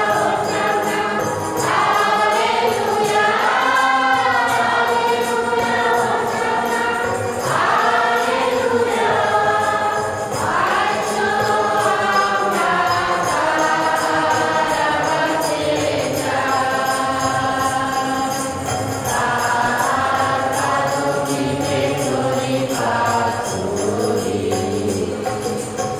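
Church choir singing the entrance hymn of the Mass, with held notes and rising and falling phrases. The singing ends right at the close of the hymn.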